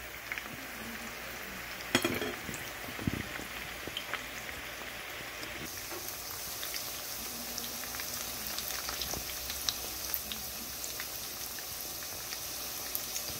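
Flour-coated boneless chicken pieces deep-frying in hot oil over a high flame, their final crisping stage. A steady sizzling hiss runs with many small crackles and grows a little brighter about six seconds in, with a brief knock about two seconds in.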